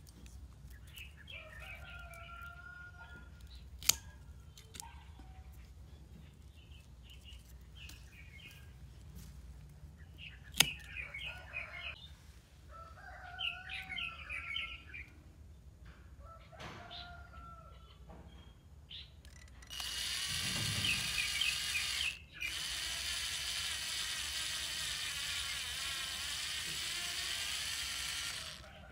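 Birds chirping on and off, with two sharp clicks. Then a cordless drill runs steadily for about nine seconds, stopping briefly once and restarting. The drill is the loudest sound.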